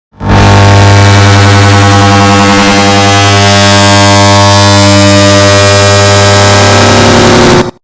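Air conditioner start-up sound stacked and boosted into a harsh, clipped buzzing drone with a strong low hum. It starts abruptly just after a brief silence, holds steady, and cuts off suddenly near the end.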